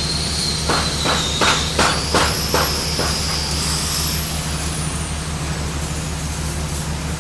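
Semi-automatic (MIG/CO2) welding on steel plate: a steady machine hum with a high whine, and a quick run of sharp crackling pops from about one to three seconds in.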